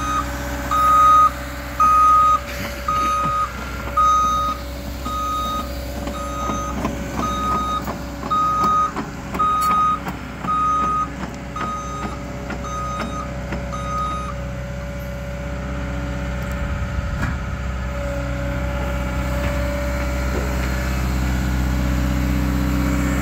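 Cat Next Gen excavator's travel alarm beeping about once a second while the machine tracks, over its diesel engine running steadily. The beeping stops a little past halfway, and the engine keeps running.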